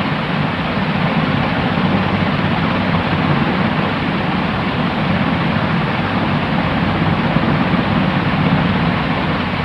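Steady white noise: an even, unbroken hiss with a low rumble underneath.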